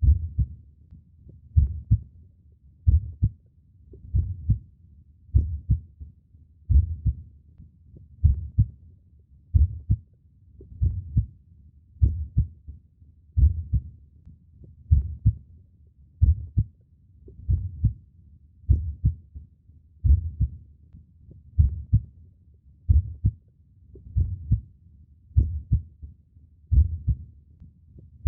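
Human heartbeat: a slow, steady lub-dub, each beat a pair of low, deep thumps, at about 45 beats a minute.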